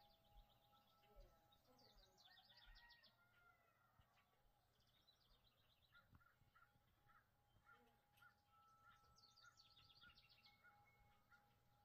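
Faint birdsong from more than one bird: quick high trills near the start and again near the end, and a run of evenly repeated whistled notes, about two a second, through the second half. A thin steady tone sits faintly under it.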